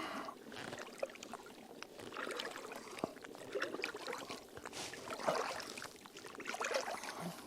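Water splashing and trickling in short, irregular bursts, as a water filter's soft flask is dipped and filled.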